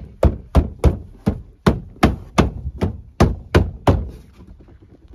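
Open hand repeatedly slapping a BMW X3 interior door trim panel, about a dozen sharp thumps at roughly three a second, stopping about four seconds in. Each blow pushes the panel's plastic retaining clips home into the door.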